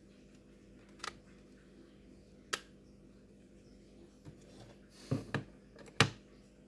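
Scattered sharp clicks and taps of hard plastic and metal parts being handled during a laptop RAM and SSD swap, with a brief scraping rustle about five seconds in and the loudest click just after it.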